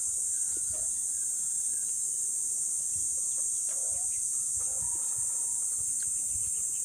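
Steady, high-pitched insect chorus droning without a break, with faint chewing and mouth sounds from a man eating.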